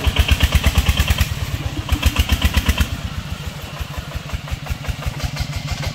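Công nông cart's single-cylinder diesel engine thumping with a rapid, even beat as it labours to pull the loaded cart out of deep mud. It is loudest in the first second and again about two seconds in, then drops to a quieter steady beat.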